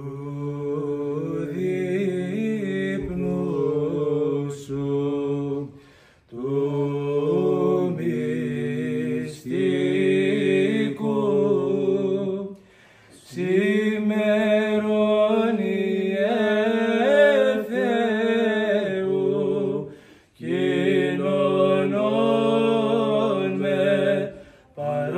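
Two men chanting an Orthodox liturgical hymn together, in long held phrases of about six to seven seconds broken by short pauses for breath.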